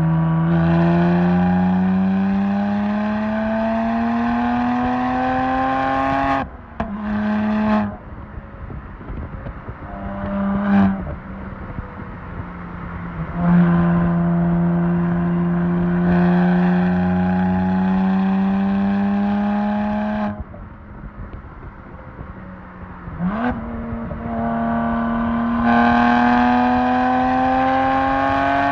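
BMW 1M Coupe's twin-turbo inline-six (N54) through a titanium Akrapovic exhaust, pulling hard in gear. The note climbs steadily, drops sharply at a gear change about six seconds in, comes back briefly, then pulls again for several seconds. It goes quieter off throttle, gives a quick rev blip, and pulls once more near the end.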